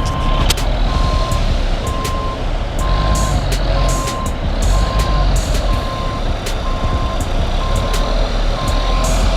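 Reversing alarm on heavy logging machinery, a single steady beep about once a second, over a diesel engine running.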